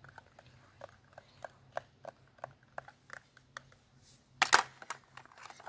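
Light taps and clicks of fingers on a small box, about three a second, followed about four and a half seconds in by a short, louder scratchy rustle.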